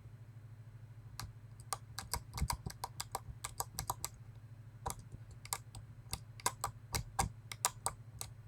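Key pins of a Medeco lock clicking sharply and irregularly, sometimes several a second, as a pick bounces them while the sidebar is held under counterclockwise tension. The free, clicky bounce is the sign that the pins' rotations are set correctly.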